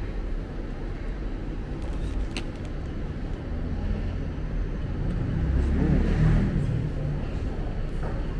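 Road traffic: a low engine rumble that swells as a vehicle passes, loudest about six seconds in. A short click about two and a half seconds in.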